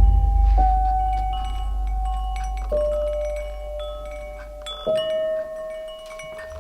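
Bell-like chime notes, struck one at a time about every two seconds and left ringing, the pitch mostly stepping lower with each strike, over a deep low drone that fades away near the end.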